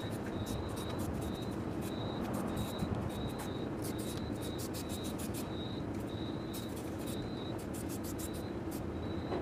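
A cricket chirping about twice a second over a steady low hum, with scattered light clicks.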